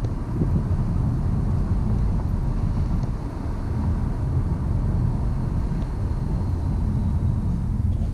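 Steady tire and road noise inside the cabin of a Honda Accord Sport Special Edition on its 19-inch wheels while driving, a low rumble. The tires are inflated to 40 psi, and the front-end noise that the owner blamed on the tires is now very slight.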